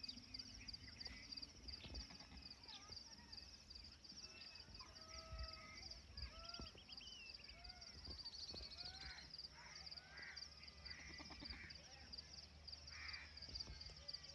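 Outdoor animal ambience: a steady, high pulsing insect chirring, with scattered short bird calls and chirps throughout.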